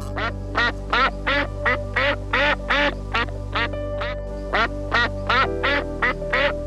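Background music with sustained chords under a rapid series of short, loud animal calls, about three a second.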